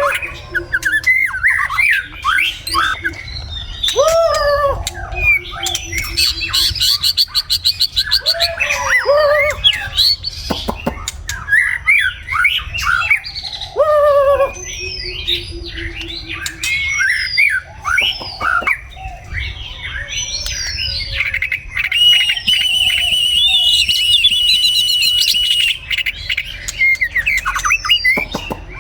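White-rumped shama singing a long, varied song of gliding whistled phrases broken by fast rattling trills, with a steady trill held for a few seconds near the end.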